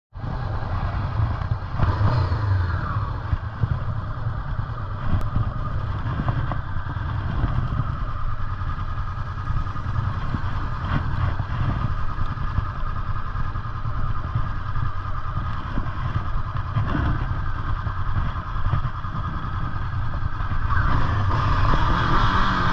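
Honda CB500F's parallel-twin engine running at low revs during slow-speed riding, its note shifting with the throttle and picking up in revs near the end.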